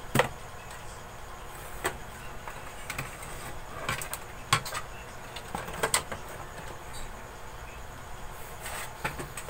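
Handling clatter: a series of separate sharp knocks and clicks as an amplifier circuit board with its aluminium heatsink is lifted and turned over inside the metal chassis. The loudest knock comes right at the start.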